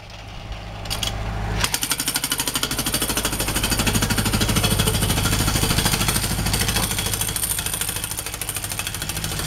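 Jackhammer breaking out old concrete footings, hammering rapidly and steadily. It comes in at full strength a second or two in, with a steady low hum underneath.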